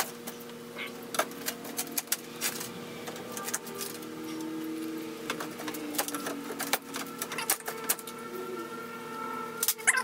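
A pry bar working the old wooden corner framing of a 1966 Shasta travel trailer loose: scattered knocks, taps and creaks of metal on wood, over a steady low hum.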